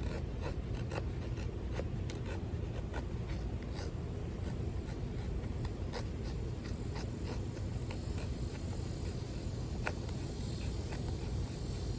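Sharp lockback folding knife blade scraping and shaving wood in short, irregular scratchy strokes, with scattered small clicks over a steady low rumble.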